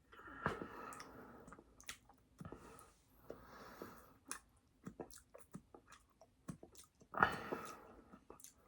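Close-up chewing of a fast-food meal, with many short wet mouth clicks and smacks. Three longer noisy stretches come near the start, in the middle and near the end.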